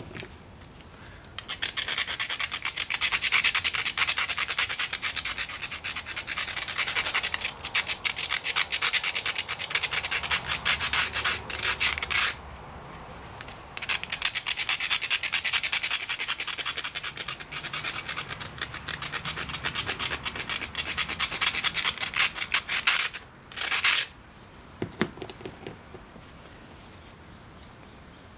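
An abrading stone rubbed quickly back and forth along the edge of a Texas tab flint preform, grinding the edge to prepare it for pressure flaking. The grinding runs in two long spells with a short pause about twelve seconds in, and after a brief last burst it stops a few seconds before the end.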